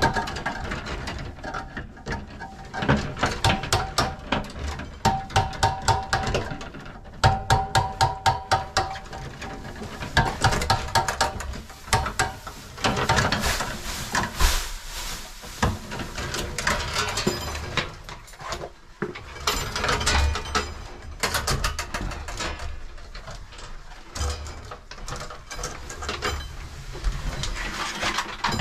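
Hand work inside a metal electrical panel: runs of rapid clicks and knocks with metal and wire rattling and scraping against the box as wires are worked loose and pulled out.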